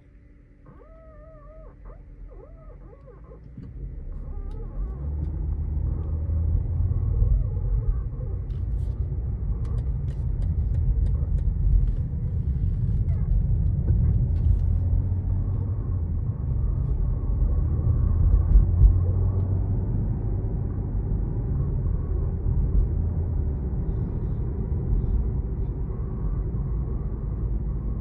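Steering of a BMW G21 3 Series squeaking: a wavering, high-pitched squeal in short runs during the first few seconds as the steering is turned. After about four seconds a loud, steady low rumble covers it for the rest of the time.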